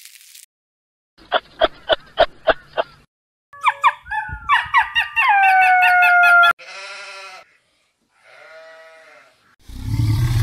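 A string of different animal calls in quick succession: about seven short sharp calls, then a few louder drawn-out calls that fall in pitch, then two briefer hoarse calls. A loud low rumble starts near the end.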